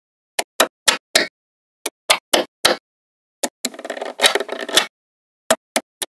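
Small magnetic balls clicking as strips of them snap together: a run of sharp clicks, several in quick succession, with a rattling, clattering stretch a little past the middle as the balls shift against one another.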